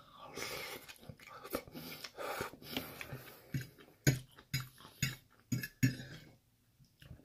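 Close-up eating sounds of someone chewing a mouthful of chicken and vegetable stir fry, with wet mouth noises and a metal fork against a plate. Between about four and six seconds in comes a run of half a dozen sharp, loud smacks.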